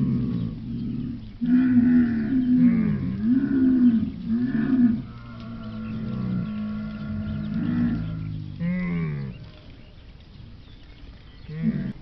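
Dromedary camels calling: a string of low, drawn-out calls that rise and fall in pitch, one after another, quieter for a stretch near the end before one more call.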